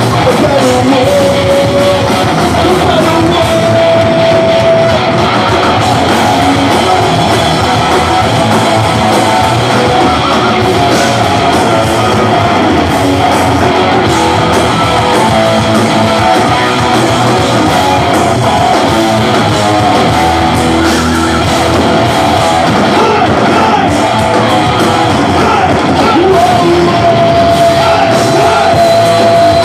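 Rock band playing live: distorted electric guitars and drums with a singer's vocals, some notes held long.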